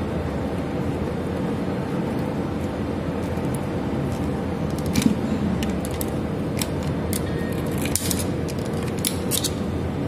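Small screwdriver clicking and scraping on the brass terminal screws of a switchboard plate as a wire is tightened into a terminal. A handful of short, light clicks come from about halfway through, over a steady background hum.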